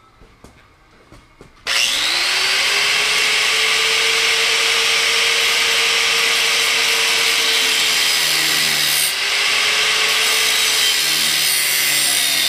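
Angle grinder spinning up a couple of seconds in, then running steadily as its disc cuts into a steel bar, the motor's pitch sagging now and then as it bites into the metal.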